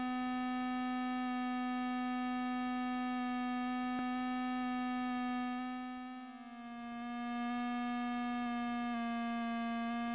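A single held electronic tone, low and buzzy with many overtones, switching on abruptly; about six seconds in it dips in loudness and wavers slightly in pitch, then carries on with small steps in pitch near the end.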